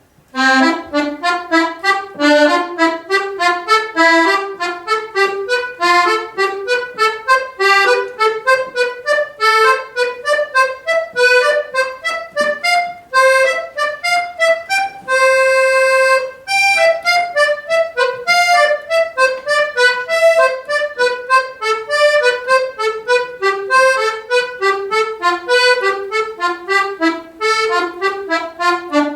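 Accordion playing a fast exercise of short notes, two slurred and four staccato in each group, climbing in pitch to one long held note about halfway and then running back down. On the way down the staccato is softer and not always sharp, as the teacher judges it.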